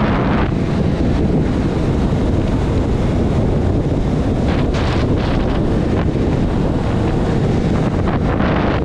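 Loud, steady wind noise buffeting the camera microphone of a motorcycle riding at speed, with no distinct engine note standing out.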